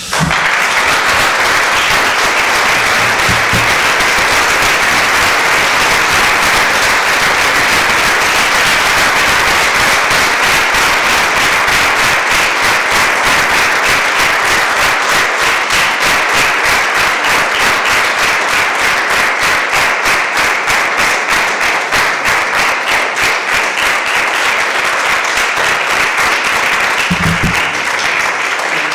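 A lecture audience applauding for about half a minute. The clapping settles into an even rhythm in the second half and tails off near the end, where a single low thump is heard.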